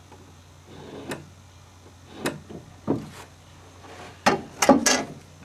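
Wooden pieces being handled against a wooden deck beam: a square and a thin wooden strip set down and moved, giving a few separate knocks and taps, the loudest cluster near the end.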